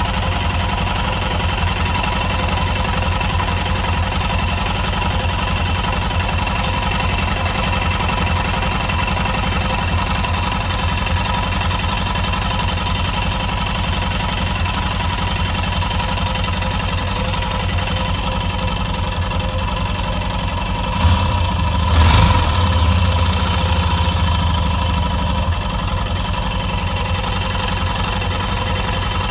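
Yamaha XT660Z Ténéré single-cylinder engine idling steadily. It is being listened to for a rattle near the cam chain that sounds like a shaken key ring, which the owner finds hardly reproduces. About three-quarters of the way through there is a brief louder stretch with one sharp knock.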